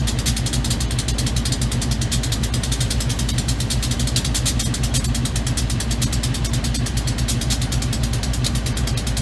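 Vehicle engine running steadily: a low hum with a fast, even pulsing over it.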